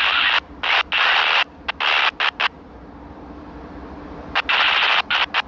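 Bursts of radio scanner static switching abruptly on and off several times, with a quieter stretch in the middle. Under it runs a faint steady hum from an approaching diesel locomotive, slowly growing.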